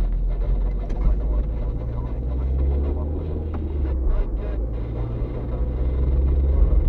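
Car's engine and tyre noise heard from inside the cabin while driving, a steady low rumble.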